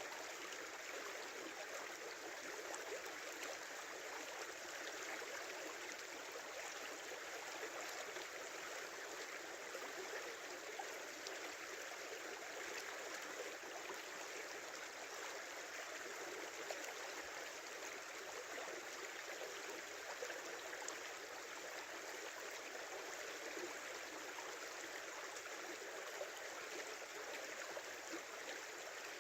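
Small river flowing and babbling, a steady, even rush of water.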